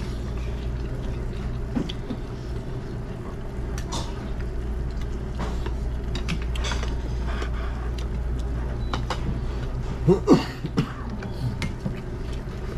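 Eating at a table: light clicks and taps of chopsticks and spoons against bowls over a steady low hum. A short voice sound comes about ten seconds in.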